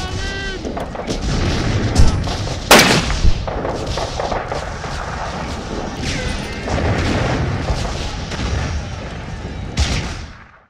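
Blank-fired gunshots from re-enactment weapons: three loud bangs in quick succession about two to three seconds in and another near the end, over a steady low rumble. The sound fades out at the very end.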